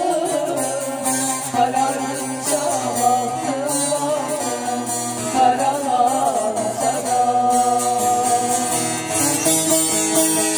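A woman singing a folk song into a microphone over saz (bağlama) accompaniment, her voice wavering through melodic ornaments, with steadier held notes in the last few seconds.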